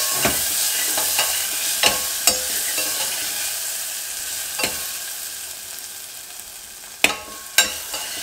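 Metal spoon stirring cashews and dried red chillies frying in ghee in a pressure cooker pot: a sizzle that grows fainter, with scattered clinks and scrapes of the spoon against the pot and two sharper clinks near the end.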